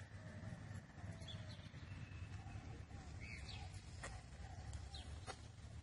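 Faint outdoor background: a low steady rumble with small bird chirps here and there and a few light clicks.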